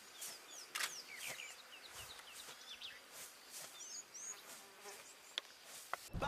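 Bush ambience: insects buzzing steadily, small birds chirping in short quick notes, and a few brief crackles.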